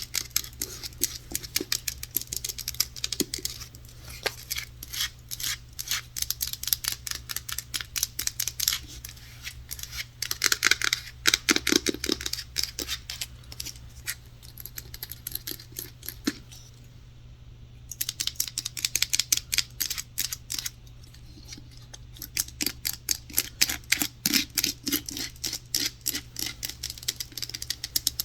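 Rapid close-miked tapping on hard objects, several light taps a second in quick runs, stopping briefly about two thirds of the way through; a steady low hum lies under it.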